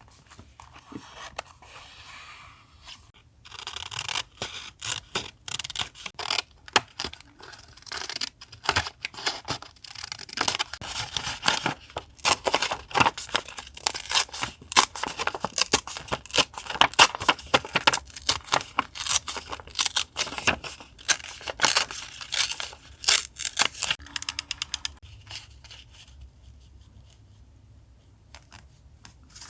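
Close-up paper crafting sounds: paper being worked by hand, with a soft scratchy rustle at first, then a long dense run of crisp snips and crackles that thins out to a few clicks near the end.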